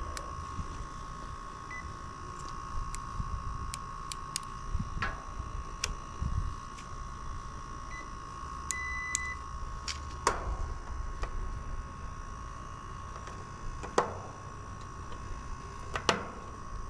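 Digital clamp meter beeping: two short beeps and one longer beep around the middle. Between them come the sharp clicks and knocks of its test leads being handled, the loudest near the end, over a steady high whine.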